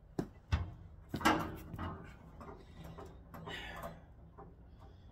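Hard objects being handled and set down: a few sharp knocks and clatters in the first second and a half, then a softer scraping rustle about three and a half seconds in.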